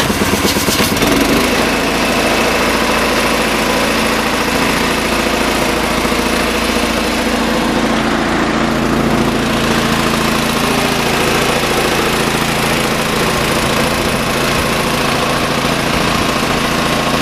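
Small pull-start gasoline engine of an air compressor running steadily just after a cold start, its choke just turned off; the sound shifts about a second in, then holds steady.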